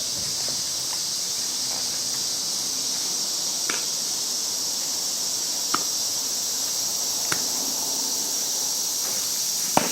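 A steady, high-pitched chorus of insects chirring, broken by a few sharp knocks a second or two apart, the loudest just before the end.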